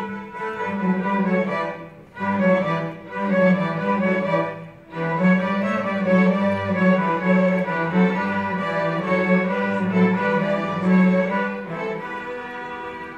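String orchestra of violins and cellos playing sustained bowed notes, with two short breaks about two and five seconds in, growing softer near the end.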